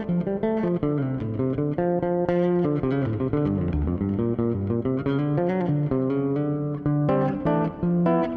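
Six-string Dingwall ABZ electric bass playing a melody line of single plucked notes high on the neck, with a little hall reverb on it.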